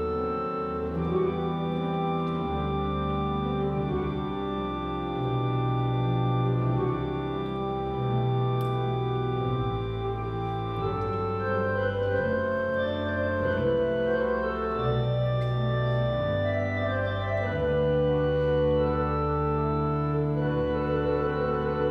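Pipe organ playing a slow piece of held, overlapping notes and chords that change every second or two, with sustained bass notes.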